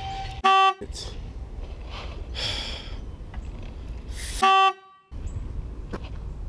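A short horn-toot sound effect, twice, about four seconds apart, each cut into the audio with a gap of dead silence around it: a censor bleep over swearing. Between the toots there is low outdoor background noise.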